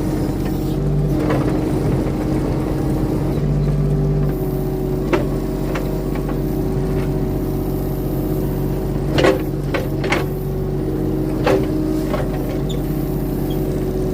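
Skid steer's diesel engine running steadily, with several short knocks and clanks from the machine at work, the loudest a pair about two-thirds of the way through.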